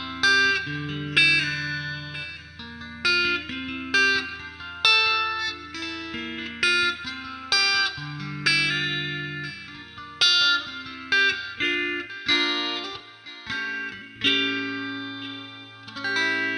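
Electric guitar fitted with EMG DG-20 pickups, played on the neck pickup: a slow melodic line of single picked notes, each struck sharply and left to ring, over held low notes that stop about twelve seconds in.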